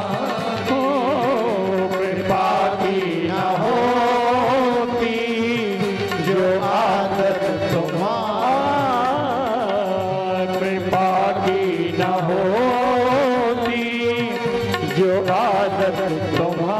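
Devotional bhajan music playing: a wavering melody line over accompaniment, with a steady beat in the low end.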